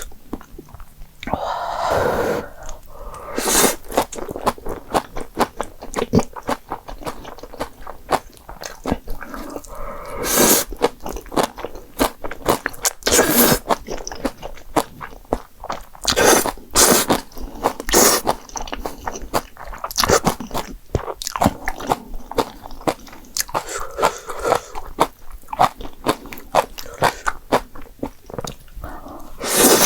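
Close-miked eating: a person chewing and biting jjapagetti noodles and green onion kimchi, with steady wet chewing clicks and a dozen or so louder short noisy bites.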